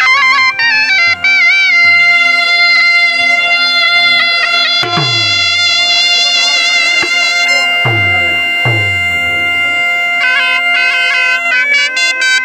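Bagpipes and a shehnai playing a folk melody together over the bagpipes' steady drone, with three deep dhol drum strikes in the middle.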